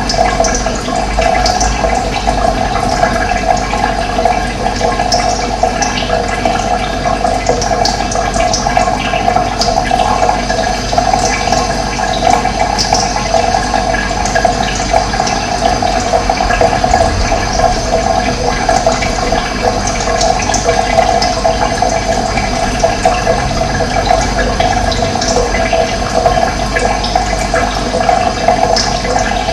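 Running water flowing steadily: a continuous, loud rushing with no breaks.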